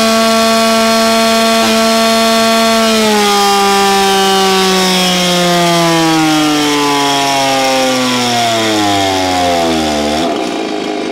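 A Stihl MS361 two-stroke chainsaw runs at wide-open throttle on a chainsaw dyno. It holds a steady high pitch near 13,000 rpm for about three seconds, then the dyno's load drags it down in a long falling pitch to about 5,500 rpm. The tone breaks off about ten seconds in as the run ends.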